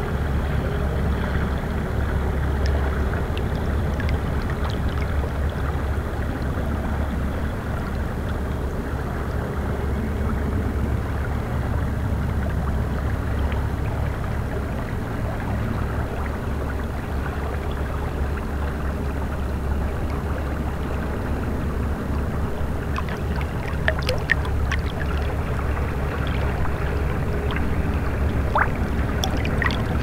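River water lapping and gurgling against shoreline rocks and a log, a steady wash with a low rumble beneath it. A few short ticks sound in the last third.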